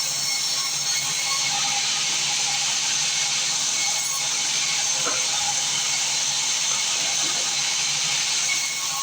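Sawmill wood-cutting saw running, a steady hissing noise with a faint whine that holds unchanged.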